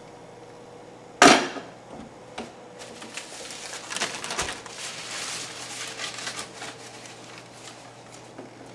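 A single sharp knock as a knife is set down hard on a wooden folding table, then several seconds of crinkling and rustling as a crinkly wrapped object is pulled out and held up.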